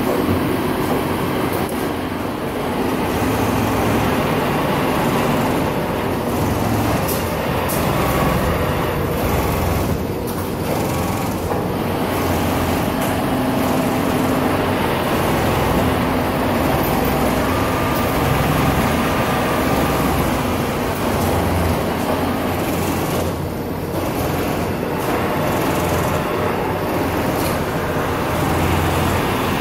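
Steady mechanical drone of garment-factory machinery running, with a constant hum and faint occasional clicks.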